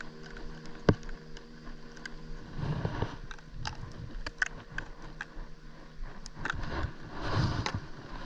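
Close handling noise of hands and clothing, rustling and knocking with scattered clicks and one sharp click about a second in, as a small live baitfish is hooked onto a fishing line and cast. A steady low hum runs under it in the first half and fades out.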